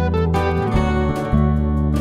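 Background music led by guitar over a bass line that changes note about every half second.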